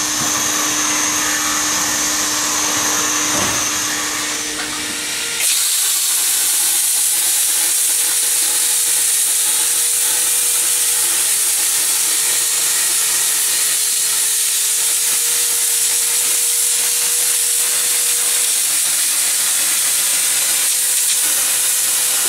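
Plasma cutter cutting sheet metal: a loud, steady air hiss with one faint constant whine. It starts abruptly about five seconds in, after a quieter, different steady hiss with a low hum.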